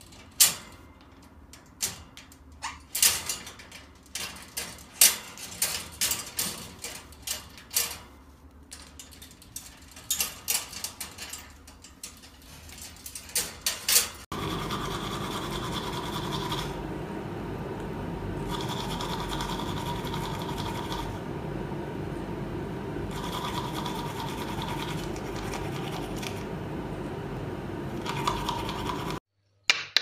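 Amazon parrot's beak clicking and rattling against a metal clip and the bars of its cage, in irregular sharp clicks. After an abrupt change, a steady rushing noise with faint, intermittent tones runs until just before the end.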